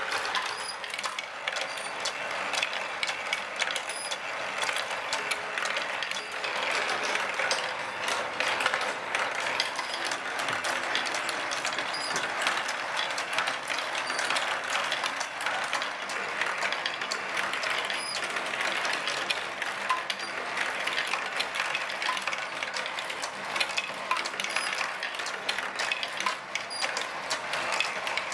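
Motor-driven 3D-printed plastic marble machine running: plastic gears turning and steel ball bearings rolling and knocking along plastic tracks and lifts. The result is a dense, steady clatter of small clicks.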